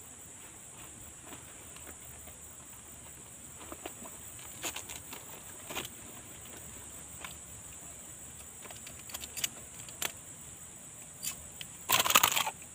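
Scattered clicks and clinks of fishing gear being handled while a landed snakehead is secured, with a louder rattling clatter of several clicks near the end. A steady high insect buzz runs underneath.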